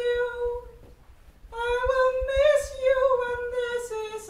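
A woman's voice singing unaccompanied in long, held notes. It breaks off less than a second in and comes back about half way through with another long note that rises slightly and then falls.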